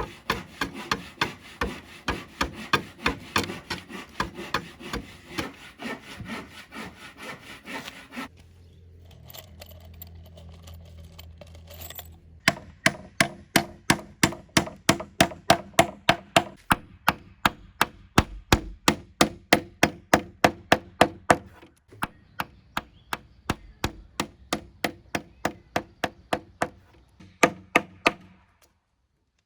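Hand saw cutting through wood in quick, even back-and-forth strokes. The strokes stop for about four seconds partway through, then start again.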